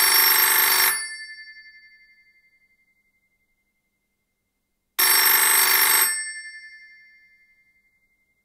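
Telephone bell ringing twice: two rings about a second long, the second about five seconds after the first, each bell ringing on and fading for a couple of seconds after it stops.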